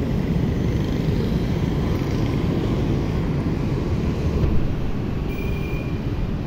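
ATR 72-500 twin-turboprop airliner climbing out overhead just after takeoff: a steady low engine rumble.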